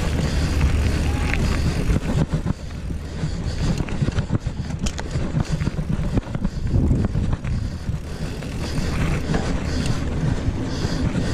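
Mountain bike ridden fast over a rough dirt and gravel track: tyres running over the ground and the bike knocking and rattling over bumps, with wind buffeting the microphone.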